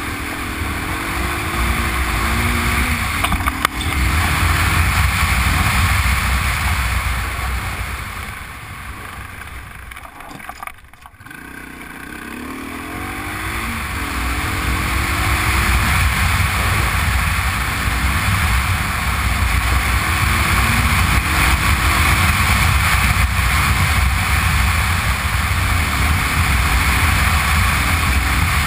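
Honda Transalp V-twin motorcycle riding on a gravel track, its engine note rising and falling with the throttle under heavy wind noise on the camera's microphone. Everything goes quieter about a third of the way in as the throttle is eased off, then builds up again.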